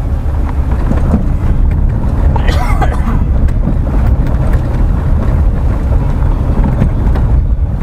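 Car driving along a wet dirt road, heard from inside the cabin: a steady low rumble of tyres and engine, with scattered small ticks.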